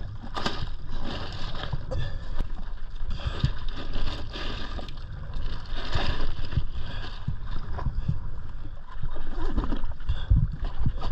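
Water slapping and gurgling against the hull of a jet ski, with wind buffeting the microphone in irregular low thumps. An insulated fish bag rustles as it is handled.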